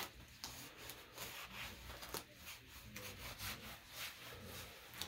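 Gloved hands rubbing and smoothing a freshly applied synthetic casting-tape leg cast around the foot and ankle while it sets: a faint series of brushing, rubbing strokes, about three a second.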